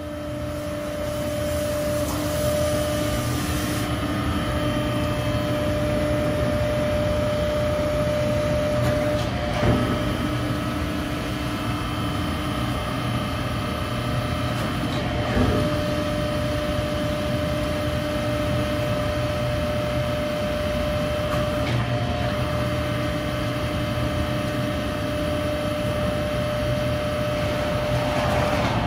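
1998 TRUMPF TrumaBend V170 hydraulic press brake running, its hydraulic pump unit giving a steady hum with two brief knocks partway through.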